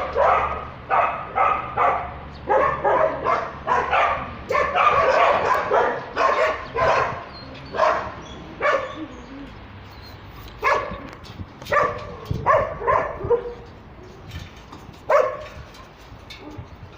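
Dogs barking, a quick run of barks about two a second for the first half, then thinning out to single barks a second or so apart.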